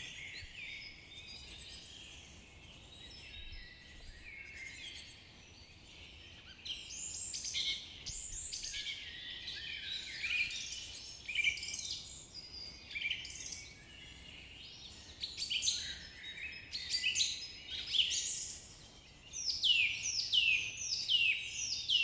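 Several birds singing and chirping, sparse at first and busier from about seven seconds in, ending in a run of quick falling notes.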